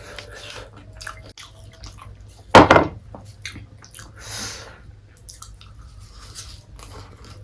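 Close-miked eating of fried chicken: wet chewing and mouth clicks, with one much louder sudden bite or knock about two and a half seconds in and a short hiss a little over four seconds in.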